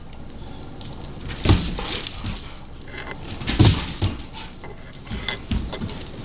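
Rottweiler puppy scrambling on a ceramic tile floor: claws clicking and scuffing, with two louder thumps about one and a half and three and a half seconds in.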